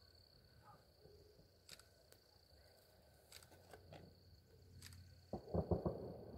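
Faint steady high-pitched insect trill in the eclipse darkness, with a few sharp clicks. About five seconds in, a short run of louder thumps and rustling as the handheld camera is moved and pointed down at the grass.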